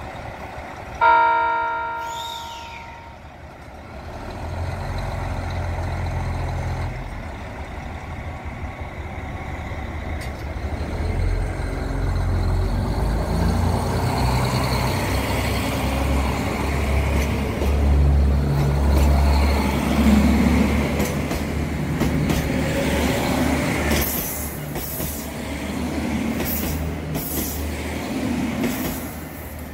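JR Hokkaido KiHa 261 series diesel train sounds its horn once, loud, then its engines rumble as it pulls away and passes close by, gathering speed, with a series of clicks near the end.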